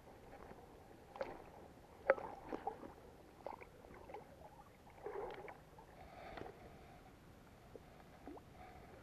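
Faint, scattered clicks, knocks and soft rustles of a spinning rod and reel being handled, with no steady rhythm; the sharpest click comes about two seconds in.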